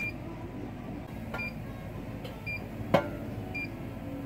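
An electronic alarm beeps about once a second in short, high-pitched beeps. A single sharp knock comes about three seconds in.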